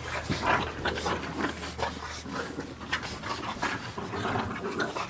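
French bulldogs playing together, making a run of short, irregular dog noises.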